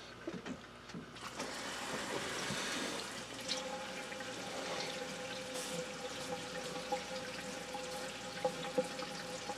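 Hot soldering iron tip sizzling steadily as it is tinned with solder and flux to clean it, starting about a second in, with a faint steady hum underneath.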